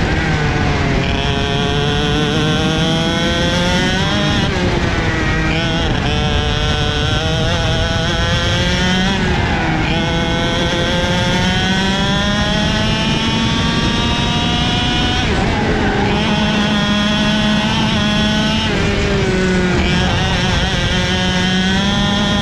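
Two-stroke racing kart engine heard onboard, running hard at full throttle: its pitch climbs in long rising sweeps and drops off sharply four times before climbing again.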